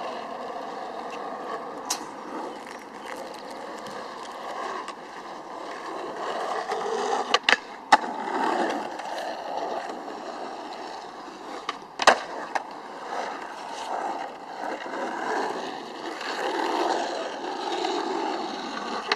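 Skateboard wheels rolling, the rumble swelling and fading as the board passes, with a few sharp clacks of the board hitting the ground: two close together about halfway through and the loudest a few seconds later.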